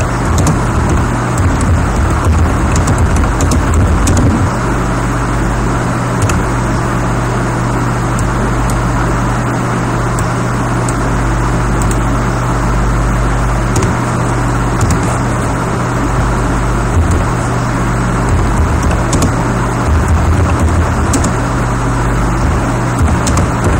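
Steady, loud background hiss with a strong low hum, and a few faint clicks now and then.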